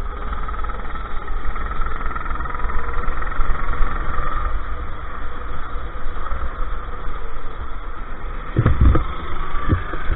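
Go-kart engine running at racing speed, heard on board, over a steady low rumble. A few heavy low thumps come near the end.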